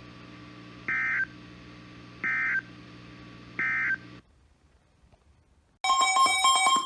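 Emergency Alert System End-of-Message data bursts from a radio: three short, harsh digital screeches, each about a third of a second, a little over a second apart, marking the end of the weather warning. After a short silence, a louder electronic tone with several pitches starts about six seconds in.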